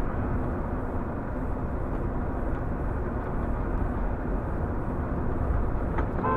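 Steady road and engine noise of a car driving, heard from inside the cabin.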